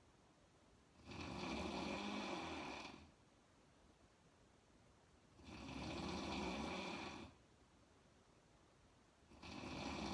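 A woman snoring in a slow, even rhythm: a snore about two seconds long roughly every four seconds, three in all, the last starting near the end.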